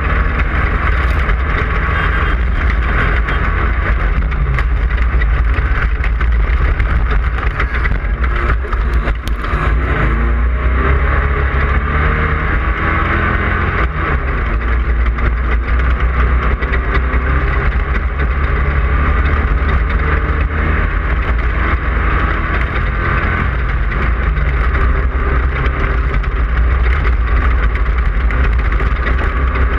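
Class 5/1600 off-road race car's air-cooled 1600 cc Volkswagen flat-four running hard and steady at race pace, over a constant rush of wind and terrain noise. A few sharp knocks come about nine seconds in.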